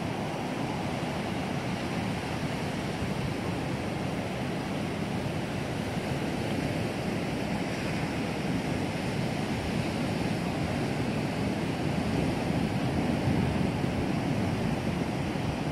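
Steady rushing noise with no distinct events, swelling slightly about twelve seconds in.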